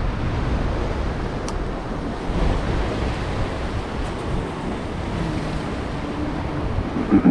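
Ocean surf breaking and washing over a rock shelf: a steady rushing noise with a strong low rumble.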